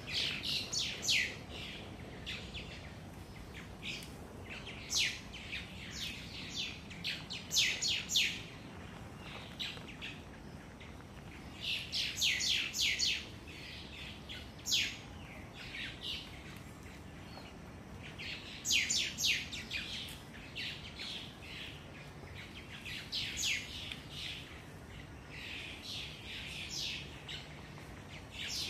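Wild birds chirping: runs of quick, high, falling chirps that come every few seconds.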